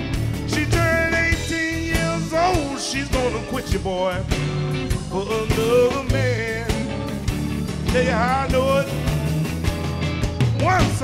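Live blues band playing: a lead line of bent, wavering notes over bass and steady drums.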